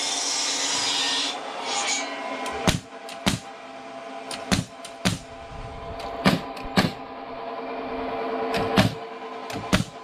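Bostitch pneumatic nailer firing nails into pallet boards: about eight sharp shots, mostly in pairs about half a second apart.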